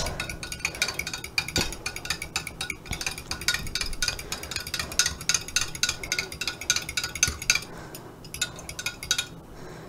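Metal spoon stirring beaten eggs in a tall drinking glass: quick, repeated clinks of the spoon against the glass, thinning out near the end.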